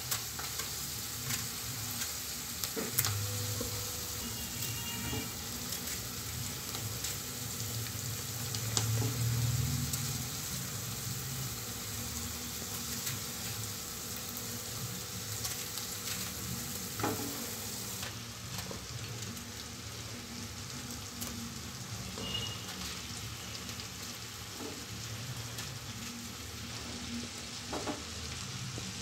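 Onions, green chillies and soaked chana dal frying steadily in oil in a metal pot, a continuous sizzle, with a few light clicks as brinjal slices are cut and dropped in.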